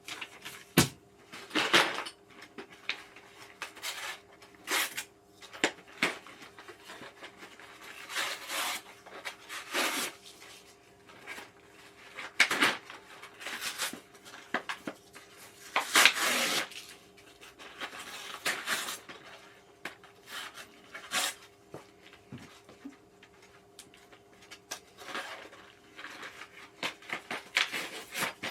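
Gaming chair parts, hardware and packaging being handled during assembly: irregular clinks, knocks and rustles, with a faint steady hum underneath.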